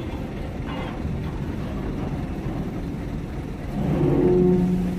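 Steady low rumble of heavy engines, with one engine note rising louder about four seconds in, then easing off near the end.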